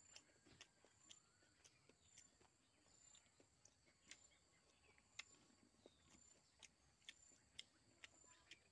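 Faint, steady high-pitched insect chirping, with scattered sharp clicks about two to three times a second.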